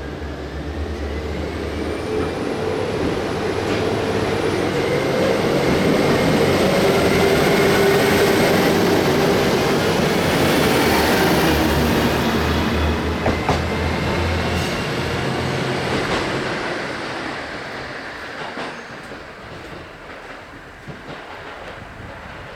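A train passing close by, growing louder to a peak in the middle and then fading away, with wheels clacking over the rail joints.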